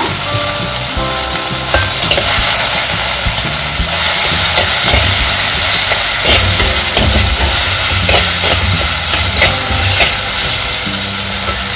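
Crushed shallots, garlic and curry leaves sizzling in hot oil in a clay pot, stirred and scraped with a steel spoon as they sauté until their raw smell is gone.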